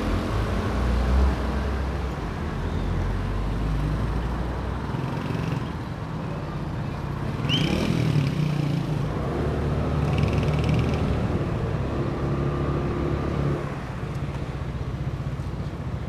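Motorcycle engine running as the bike rides along a street, with wind and road noise on the microphone and the engine note shifting with the throttle. A short high-pitched squeak about halfway through.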